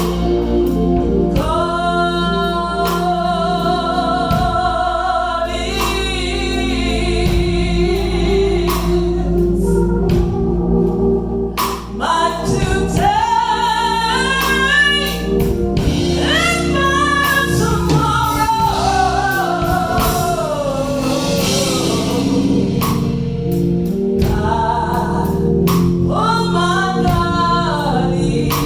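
Gospel song with solo singing over a steady instrumental accompaniment.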